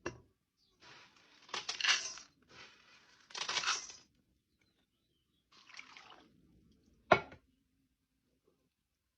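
Something poured into a cooking pot in a few short pours, then a single sharp clink of cookware about seven seconds in.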